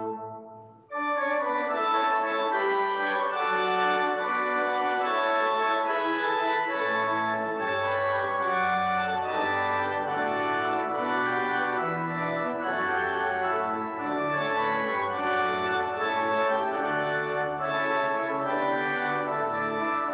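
Organ playing: a held chord dies away about a second in, then full sustained chords start up again over a moving bass line.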